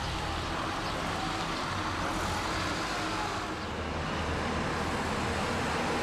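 A car and a heavy dump truck driving past on a road: steady engine and tyre noise with a low engine hum, a little louder near the end as the truck passes close.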